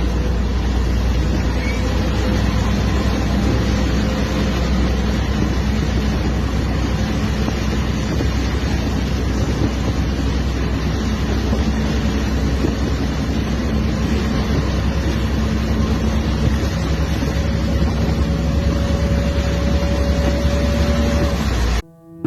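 A motor vehicle's engine running under a loud, steady rushing noise; its hum creeps slightly higher near the end, and everything cuts off suddenly just before the end.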